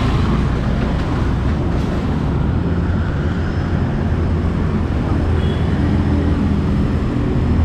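Street traffic on a wide city road: motor scooters running past, a steady engine hum over road noise.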